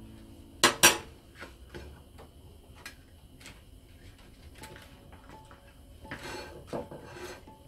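A metal spoon set down with two sharp clinks about a second in. Then faint small taps and rubbing as hands smooth damp rice paper on a porcelain plate.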